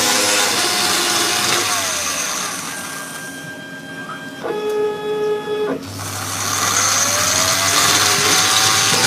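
CNC router cutting foam. The loud cutting noise dies away with a falling tone about two seconds in. Midway a steady whine of several tones sounds for about a second and a half, like the machine's motors traversing. The cutting noise then builds back up with a rising tone.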